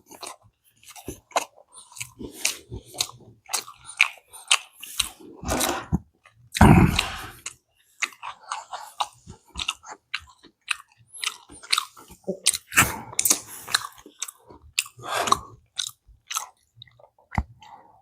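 Close-miked chewing of fast food, with irregular crunchy bites and mouth clicks throughout.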